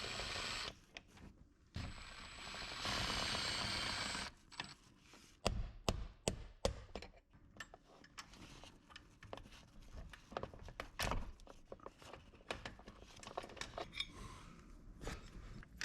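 Hand tools working on a pop-up camper's roof lift-arm bracket: a scatter of short, sharp taps, clicks and knocks. Two bursts of rushing noise come in the first few seconds.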